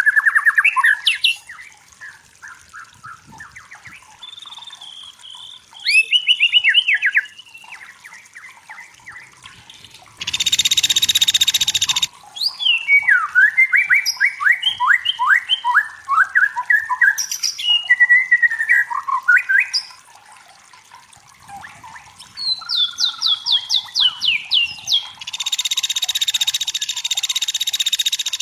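White-rumped shama singing a varied song of clear whistles and fast rattling trills. It is broken twice by a harsh hissing buzz lasting about two seconds.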